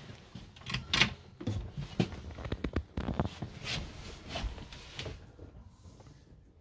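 A quick run of irregular clicks, knocks and light thuds, like cupboard doors and drawers in a motorhome's living area being opened and shut, dying away in the last second or so.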